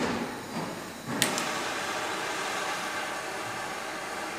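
Handheld propane torch being lit: a sharp igniter click about a second in, then the flame burns with a steady hiss.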